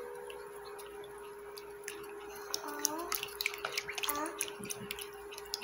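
Wooden spoon stirring warm milk in a glass bowl: soft liquid swishing, with light ticks of the spoon against the glass that grow more frequent from about halfway on.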